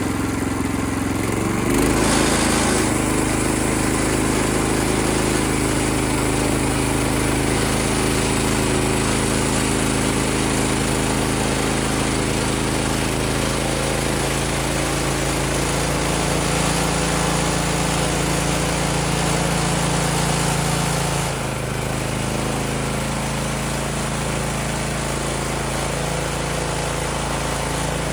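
Small gasoline engine of a portable band sawmill running steadily, with the blade cutting through a poplar log. The sound shifts about two seconds in and eases a little about three-quarters of the way through.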